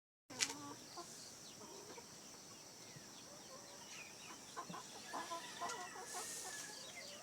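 Chickens clucking, with short scattered calls and one longer drawn-out call in the second half. A sharp click sounds right at the start.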